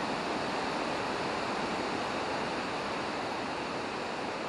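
Steady rushing noise of river water, with wind blowing.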